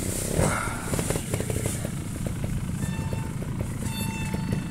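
Trials motorcycle engine idling with an uneven, pulsing beat.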